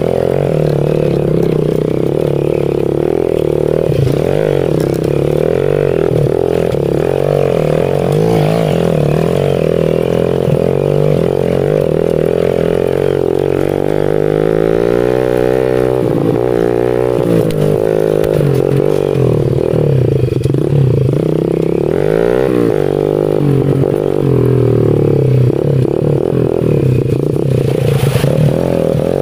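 Small 110 cc pit bike engine running on a trail ride. The throttle opens and closes, so the pitch rises and falls repeatedly, with the biggest swings about halfway through.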